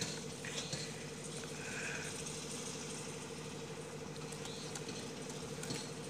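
Light scratching and clicking of hands working the plastic sheath of an ADSS fiber optic cable, over a steady low hum.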